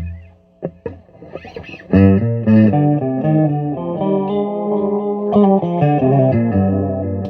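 Electric guitar played through effects with some distortion: a few picked clicks and short notes, then from about two seconds in a run of ringing notes and chords that slowly fade near the end.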